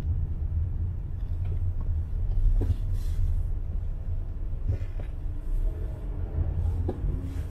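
Steady low rumble of a car moving slowly along a city street, with a few faint knocks.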